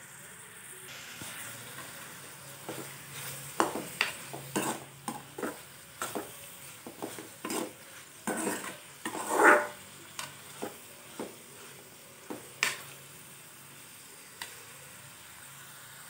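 Metal spatula scraping and knocking against a metal kadai, stirring coriander leaves sautéing with onion and garlic in oil, over a faint steady sizzle. The strokes come irregularly through the middle, the longest and loudest scrape about halfway through, then the stirring stops.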